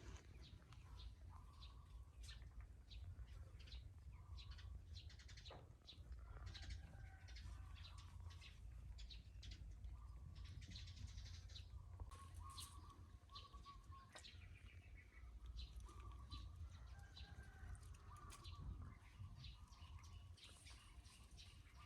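Faint poultry sounds: short soft bird calls and many quick ticks and clicks, over a low steady rumble.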